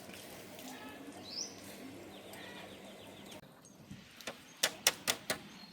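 A quick run of sharp clicks or knocks over about a second, starting about four seconds in, against faint background noise with a brief chirp and a short rattle earlier.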